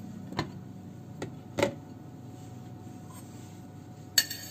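A few light knocks as a shot glass and a plastic measuring jug are set down on a glass-ceramic hob, then a short clatter near the end as a china plate scrapes over the rim of the mixing bowl while orange zest is tipped in.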